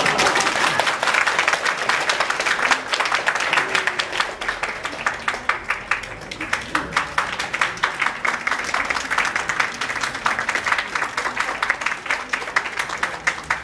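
An audience applauding, many hands clapping at once. In the second half the clapping grows more even in rhythm.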